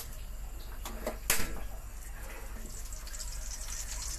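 Chopped garlic sizzling in hot oil in a stainless steel pot, with a sharp metal knock about a second in.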